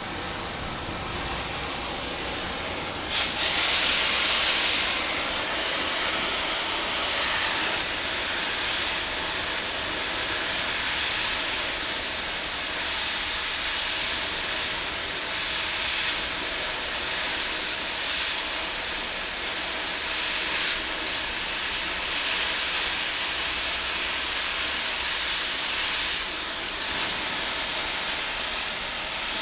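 Oxy-fuel cutting torch hissing steadily as it washes old weld off a steel tractor lift arm. There is a louder blast about three seconds in, and brief surges come every couple of seconds.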